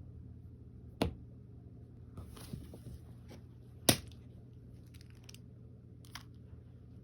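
Two sharp clicks or knocks about three seconds apart, with a few fainter taps between them, over a steady low hum.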